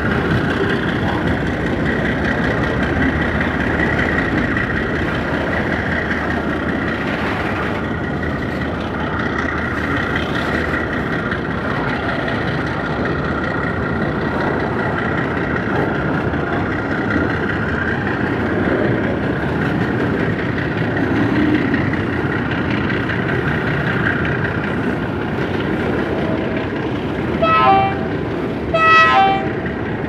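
Freight train hopper wagons rolling past: a steady rumble of steel wheels on the rails with a continuous high metallic squeal. Near the end, a train horn sounds two short toots about a second and a half apart.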